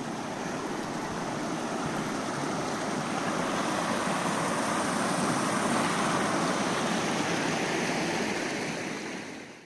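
Snowmelt stream rushing in a steady, even wash of water that grows a little louder through the middle and eases off near the end.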